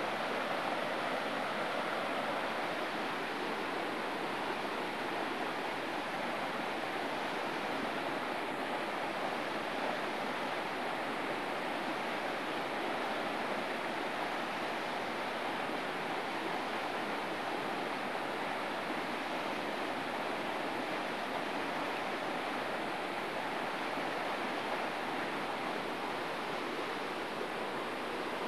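Flowing river water rushing steadily, an even rush that does not change.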